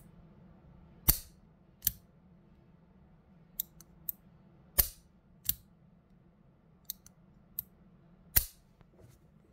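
Smith & Wesson 640 J-frame revolver dry-fired double-action: three sharp metallic clicks of the internal hammer falling, about three and a half seconds apart. Each is followed by a softer click as the trigger resets, with faint ticks in between.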